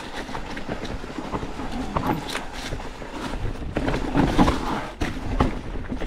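Mountain bike rattling down a rough dirt trail: a constant clatter of knocks and clicks from the bike over roots and rocks, with a low rumble underneath.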